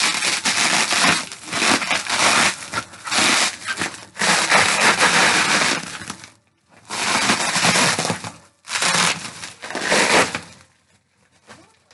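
Plastic bubble wrap that is sticky on one side, pulled and peeled apart, making a loud crackling rustle in long bursts with two short breaks and fading near the end.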